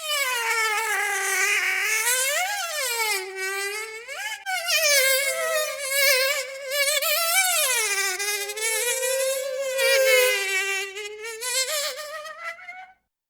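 A flying insect's buzzing wing whine, held for about thirteen seconds. Its pitch swoops up and down as if it were circling close by, then it cuts off abruptly near the end.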